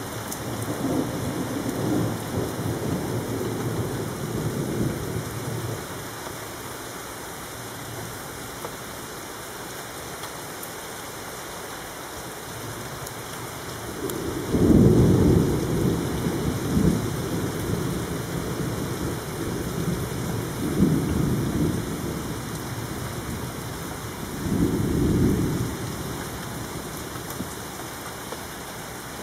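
Rain falling steadily through a thunderstorm, with rolling thunder: a long rumble in the first few seconds, a louder peal about halfway in, then two shorter rumbles later on.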